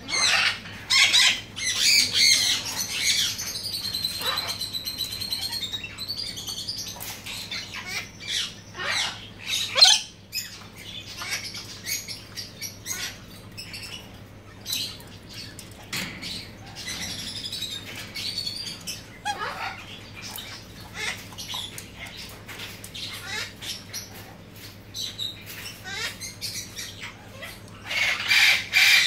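Galah (rose-breasted cockatoo) calling: a string of harsh squawks and short chirps, loudest in the first few seconds and again near the end, over a faint steady hum.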